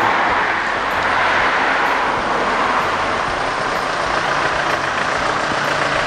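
Road traffic on a main road: a steady rush of passing vehicles' engines and tyres, swelling and easing gently as they go by.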